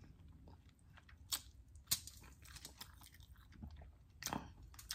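A person quietly chewing a sauce-dipped fried chicken wing, with a few short crisp bites and mouth clicks. The sharpest comes about two seconds in.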